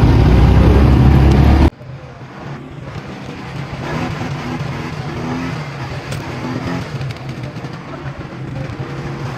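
A small vehicle engine running, loud and rumbling with wind-like noise over it, cuts off abruptly under two seconds in. A quieter, steady engine hum follows.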